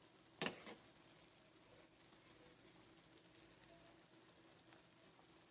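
A metal spoon clicks sharply against the pan about half a second in, with a lighter second click just after, while the picadillo simmers faintly in the pan.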